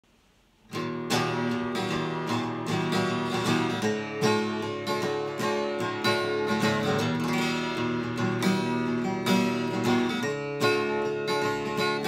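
East German archtop acoustic guitar strummed in chords, starting a little under a second in and keeping a steady strumming rhythm.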